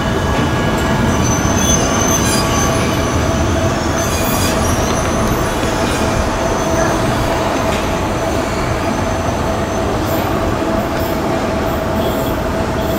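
Amsterdam metro train on line M51 pulling away from the station, its running gear rumbling steadily on the rails with a steady whine under it. High-pitched wheel squeals come in the first few seconds.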